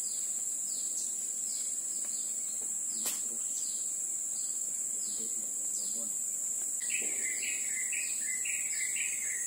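Insects buzzing steadily at a high pitch, with short falling chirps repeating about twice a second. From about seven seconds in, a bird calls in a quick run of repeated notes, and there is a single tick about three seconds in.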